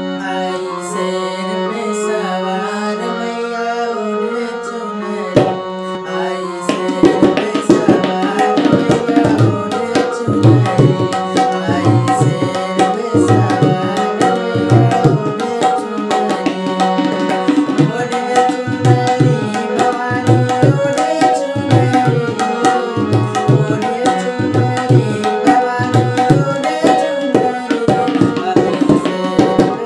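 A harmonium plays a melody on its own for about the first six seconds. Then a tabla pair comes in with a steady rhythmic beat, the bass drum giving low booming strokes, and plays on under the harmonium melody.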